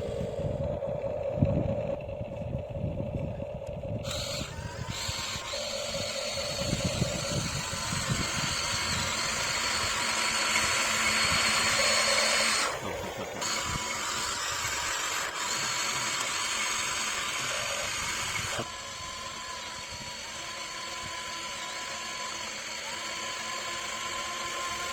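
Small electric motors and gears of a radio-controlled construction model whining as it works, with low knocks and scraping in the first few seconds. The whine gets louder about four seconds in and drops back near the end.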